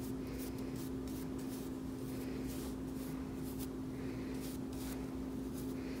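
Soft, scratchy rubbing of a brush working clear furniture wax onto a small painted knob, in short irregular strokes, over a steady low hum.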